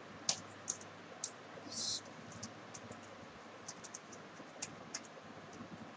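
Computer keyboard typing: scattered single keystrokes at an uneven pace, with a short soft hiss about two seconds in.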